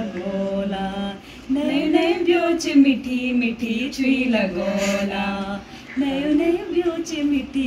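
A few young women singing a Garhwali folk song together without accompaniment, in long held phrases, with a short break about a second in and another near six seconds.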